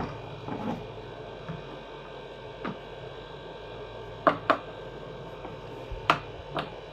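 Wheels being pushed and snapped onto an electric pressure washer's axles: a few sharp clicks and knocks, two close together about four seconds in and three more near the end, over a low steady hum.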